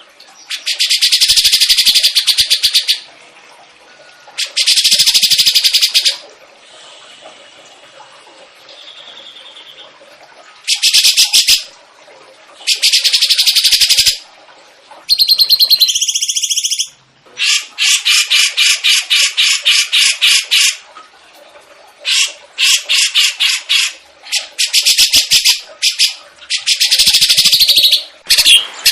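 Songbird song from a masteran recording for training cage birds: loud bursts of rapid, high trilling phrases a second or two long with short pauses between, then in the second half longer runs of quickly repeated notes.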